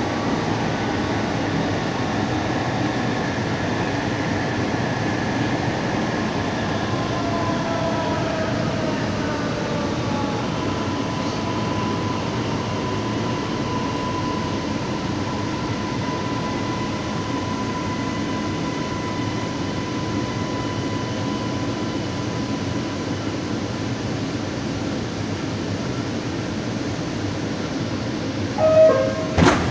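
A CSR Zhuzhou metro train running, heard from inside the car: a steady rumble with the electric traction motors' whine, which glides down in pitch over the first ten seconds and then holds one steady tone for about ten seconds. Two short loud sounds come near the end.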